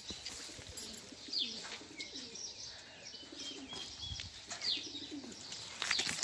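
Birds calling: repeated low calls under short, high, falling chirps scattered throughout.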